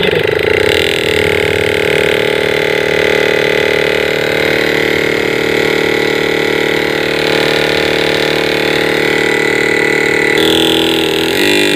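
LG inverter refrigerator compressor, run by its control board in test mode, with a steady hum and whine. About ten seconds in its pitch steps up as the board raises its speed.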